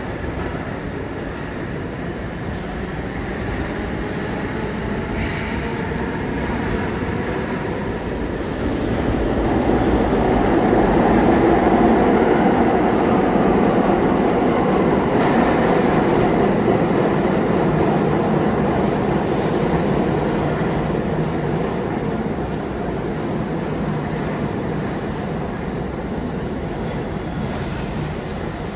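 New York City subway train in a station, a rumbling run of wheels on rail that builds to its loudest about ten seconds in and then slowly eases off. A thin, high wheel squeal sounds over the rumble in the last few seconds.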